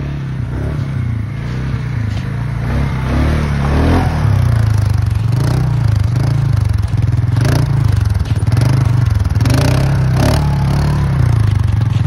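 Polaris ATV engine running and revving up and down as the quad drives through snow, heard from on board, with scraping and clattering noises coming and going.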